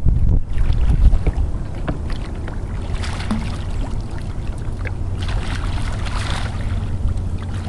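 Wind buffeting the microphone aboard an open fishing boat as a low, steady rumble, gustiest in the first second, with some faint clicks and hissing splashes.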